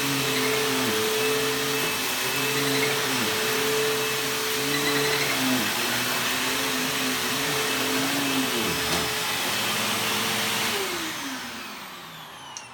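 Bissell upright vacuum cleaner running on carpet, a steady motor hum whose lower tones dip and recover about once a second. Near the end the motor is switched off and winds down, its pitch falling.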